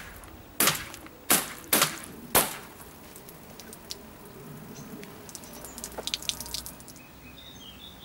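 Four sharp cracks from 5.5 mm air pistol pellets being shot into a full milk carton, coming quickly one after another within the first couple of seconds. Milk then drips and patters onto the wooden table in a burst of small quick ticks.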